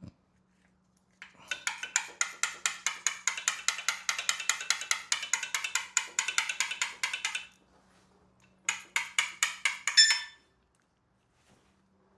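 Hand ratchet clicking rapidly and evenly, about six clicks a second, in a long run and then a shorter one, as a fastener on the engine is turned out. A brief metallic ring near the end.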